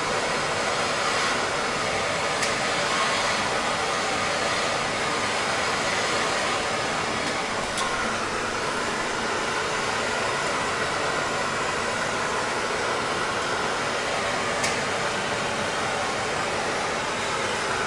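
Handheld gas torch burning with a steady, even hiss as it heats copper pipe fittings for soldering. A few faint clicks are heard over it.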